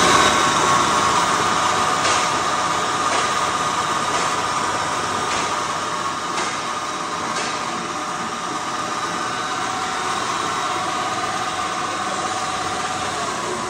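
Electric motor driving a combined rice mill and stoneless flour mill through V-belts, switched on and running with a steady whirr and a high whine, with a few light knocks.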